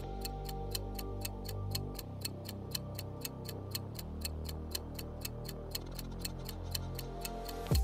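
Countdown timer sound effect ticking steadily, about four ticks a second, over quiet background music with slow-changing low notes.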